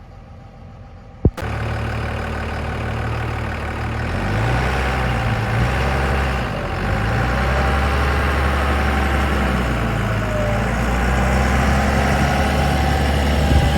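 Truck engine running steadily with a low drone, its pitch shifting about four seconds in and again a couple of seconds later. A sharp click a little over a second in, just before the engine sound starts.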